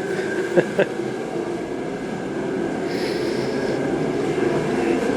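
Dry hand block-sanding of a car body panel with fine-grit paper on a sanding block: a steady, scratchy rasp, growing a little louder toward the end.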